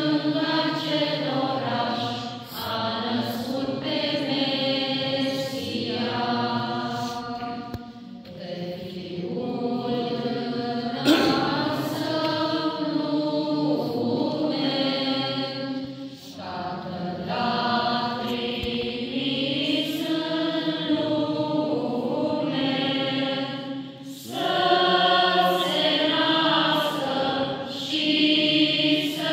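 A group of carolers (women, children and a few men) singing a Romanian colindă (Christmas carol) together, unaccompanied, in phrases several seconds long with short breaks between them.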